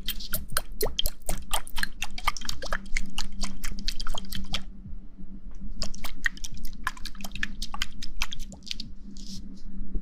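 Close-miked ASMR trigger sounds: rapid wet squishing and clicking in two quick runs, with a short pause about halfway, over a steady low hum.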